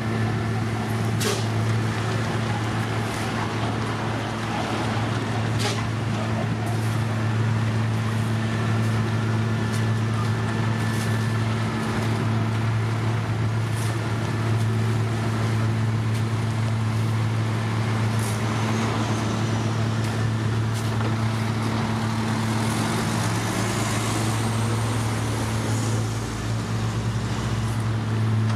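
TSUN asphalt paver's diesel engine running steadily with a constant low hum. Near the end a vehicle drives past with a rising whine.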